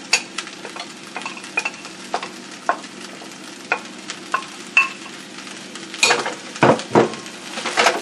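Spatula scraping and knocking against a stainless steel wok as rice and vegetables are stir-fried, over a steady faint sizzle. The strokes come at an irregular pace, with a cluster of louder scrapes about six to seven seconds in.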